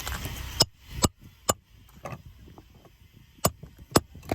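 Hammer striking a roofing snake to drive roofing nails in under the shingle tabs: about six sharp knocks, three in quick succession and three more near the end.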